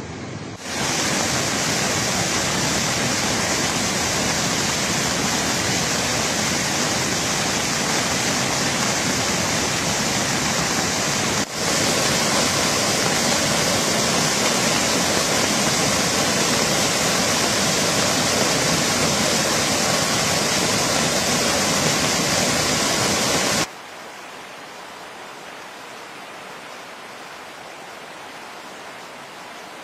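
Flash-flood water rushing over rocks in swollen rapids: a loud, steady rush with a momentary break about a third of the way in. Near the end it drops suddenly to a much quieter, even hiss.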